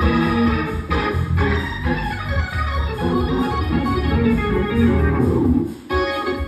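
Hammond C3 tonewheel organ played through a Leslie speaker: sustained chords and runs on the manuals over a strong bass, with a short break about six seconds in before a new chord.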